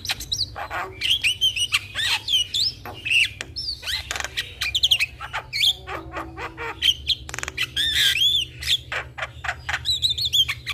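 Javan myna singing: a rapid, unbroken run of bending whistles, harsh squawks and sharp clicks.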